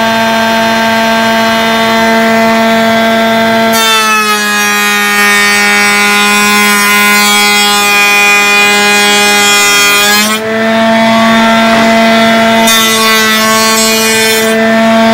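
Table-mounted router running with a steady whine. From about four seconds in to about ten seconds in, its cope cutter bit cuts the end grain of a board pushed through on a coping sled: a loud ripping hiss, with the motor's pitch sagging under the load. A second, shorter cut comes near the end.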